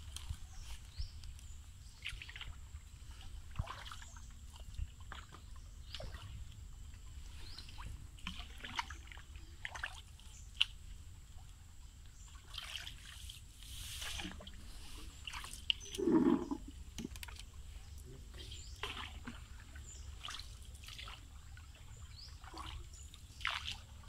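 A wooden hand paddle dipping and pulling through still canal water beside a small wooden boat, giving irregular small splashes, trickles and drips. There is one louder, deeper thud about sixteen seconds in.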